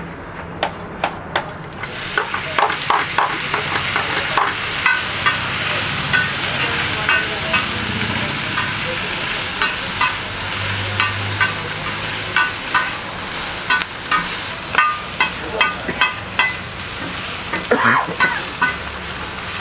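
Onions, green peppers and meat pieces sizzling on a flat griddle while a metal spatula stir-fries them, clacking and scraping against the griddle about once or twice a second, faster near the end.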